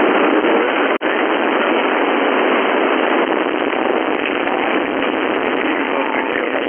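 FM radio receiver static on the 11-metre (27 MHz) band: an even rushing hiss, broken by a brief dropout about a second in.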